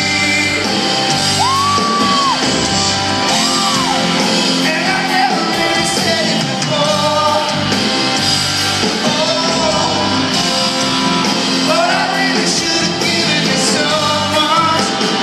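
Live rock band playing: a male voice singing over acoustic and electric guitars, bass and drums, with the sound of a large hall around it, heard from among the audience.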